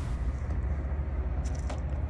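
Steady low rumble of an off-road vehicle driving, with a couple of faint clicks or rattles near the end.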